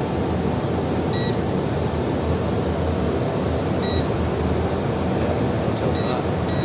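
Electronic safe's keypad beeper giving short, high beeps, four in all, spaced unevenly as buttons are pressed, over a steady background hum.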